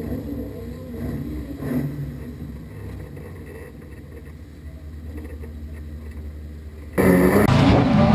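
Autograss race car engine idling, low and steady, heard from inside the cab. About seven seconds in the sound jumps suddenly to loud engines revving as a field of autograss cars pulls away.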